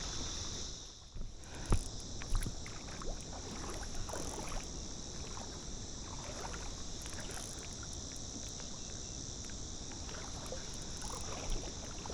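Water lapping and sloshing at a river's edge under a steady high hiss, with a few sharp knocks about two seconds in.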